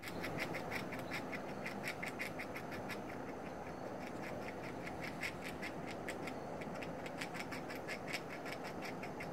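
Gray squirrel gnawing on food held in its paws: rapid crunching clicks, about seven a second, in two runs with a pause of a couple of seconds in the middle.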